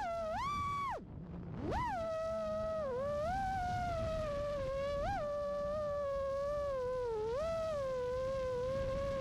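FPV quadcopter's brushless motors and propellers whining, the pitch sliding up and down with the throttle. The whine drops away about a second in as the throttle is cut, climbs sharply when it is punched again, then holds lower with a few short rises.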